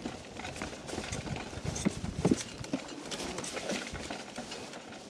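Electric mountain bike rolling over a bumpy trail, with tyres and parts rattling and knocking in an irregular patter of clicks. Two louder knocks come a couple of seconds in.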